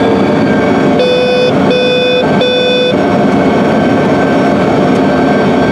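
Three short electronic warning beeps from the Horsch air drill's in-cab monitor, about a second in, over the steady running of the Challenger MT875E tractor heard from inside the cab. The alarm comes as the seed cart is running nearly empty of soybean seed.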